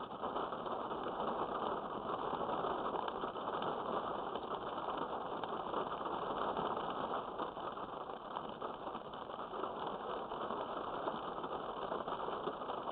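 Heavy rain pouring down, a dense, steady hiss of many drops.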